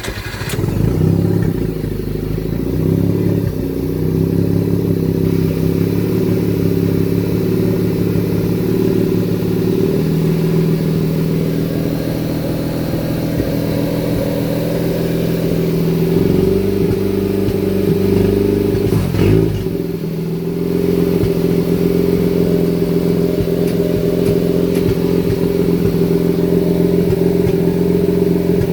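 Car engine just started, idling unevenly, its speed shifting up and down in small steps. About nineteen seconds in it briefly stumbles, then settles into a steadier idle.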